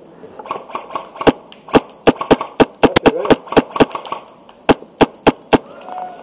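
An HPA airsoft rifle with a Wolverine Inferno Gen 2 engine firing single shots: about fourteen sharp cracks at an uneven pace, some in quick pairs, over roughly four and a half seconds.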